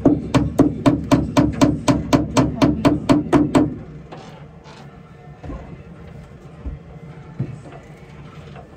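Rapid, evenly spaced knocking, about five strikes a second, each with a short ringing tone; it stops about three and a half seconds in, followed by a few faint scattered knocks.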